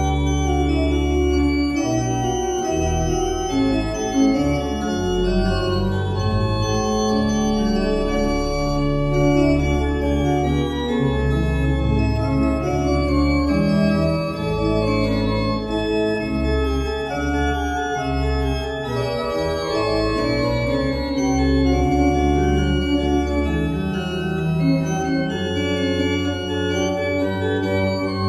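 Rebuilt 1910 Rieger pipe organ, now a baroque-type instrument of 26 stops on two manuals and pedal, playing an improvisation. It holds chords that change over a moving, deep bass line, and the deepest bass notes drop out about four seconds before the end.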